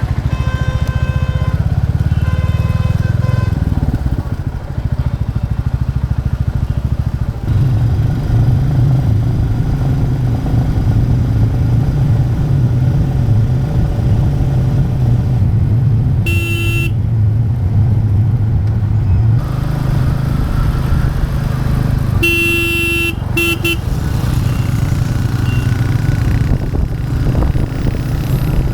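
Royal Enfield Classic 350's single-cylinder engine running under way with a steady low thump. A horn sounds once briefly a little past halfway, then again in a few short blasts a few seconds later.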